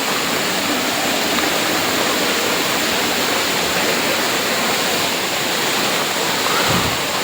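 Hot spring water rushing steadily, an even watery noise, with a brief dull bump near the end.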